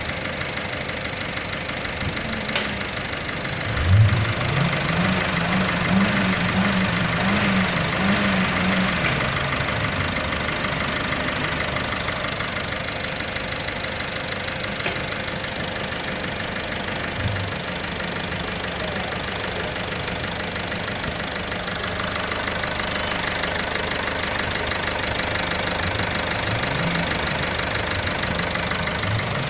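Peugeot 308 HDi diesel engine idling with its typical diesel clatter, a little louder for a few seconds about four seconds in.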